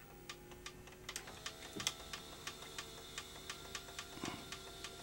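Panasonic NV-HS1000 S-VHS video recorder's tape deck trying to eject: a faint motor whine with a regular ticking about three times a second and a couple of dull knocks. This is the noise of the loading motor spinning while its split coupling fails to drive the mechanism, so the tape will not unload.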